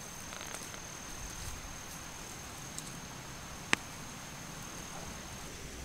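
An insect's steady, high, unbroken tone over a soft hiss of field ambience, with one sharp click a little past halfway.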